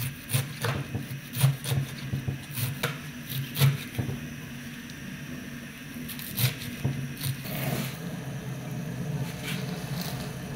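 Chef's knife chopping leafy greens (ugu leaves) on a wooden cutting board: irregular sharp knife strikes against the board for the first seven seconds or so, then a steadier noise for the last few seconds.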